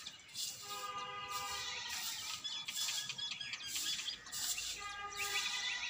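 Short hand broom sweeping dry neem leaves and dust across a flat concrete roof in repeated scratchy strokes, with birds chirping.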